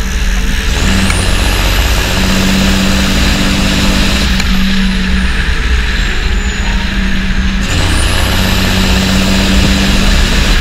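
Small motor running steadily with a hum and a hiss, driving a model tractor's miniature water pump. The sound shifts abruptly about a second in and again near the end.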